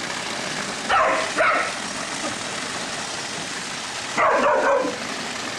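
Border collie barking: two barks about a second in, then a quick run of barks about four seconds in, over the steady splashing of a sheet waterfall pouring into a pool.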